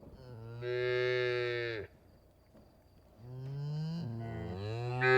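Cow mooing: one long, steady moo that drops in pitch as it ends, then after a short pause a second moo that breaks partway through and swells louder near the end.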